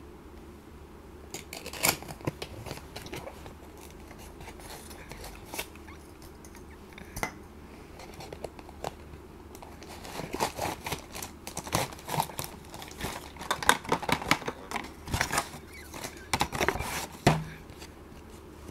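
A cardboard toy-train box being handled and opened and the plastic-bagged train cars pulled out: a few scattered clicks and rustles at first, then a dense run of crackling, tearing and crinkling of card and plastic wrap over the last several seconds.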